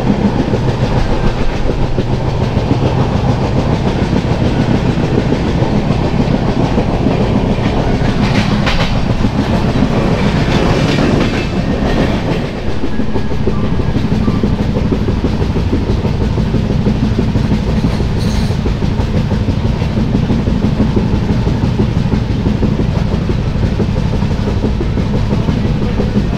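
Indian express passenger train running along the track, heard from on board: a steady rumble of wheels on the rails. About eight seconds in, a louder hiss swells for a few seconds, then drops back.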